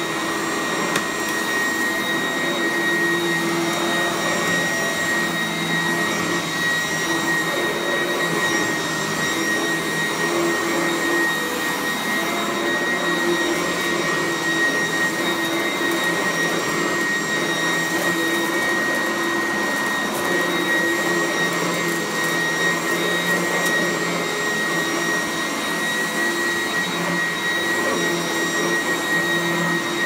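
Sanitaire SC888K commercial upright vacuum running steadily as it is pushed over low-pile indoor/outdoor carpet, with a steady high whine over the rush of its motor.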